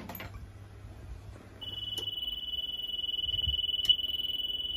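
Ignition switched on with a click, then the Dakota Digital gauge cluster's warning buzzer sounds one steady high-pitched beep, starting about a second and a half in and holding for about four seconds as the gauges power up. A faint low hum runs for the first two seconds.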